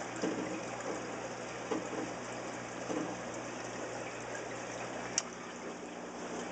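Water running and trickling steadily through an aquarium system's plumbing into a tank, over a low steady hum. A single sharp click comes about five seconds in.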